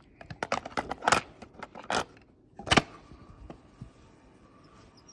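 Clicks and plastic clatter of a cassette tape being turned over in a 1985 Teddy Ruxpin's tape compartment, with the sharpest click about three seconds in, then a faint steady hum.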